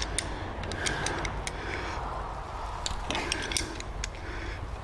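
Irregular metallic clicks and clinks of hand tools working a tight bolt loose.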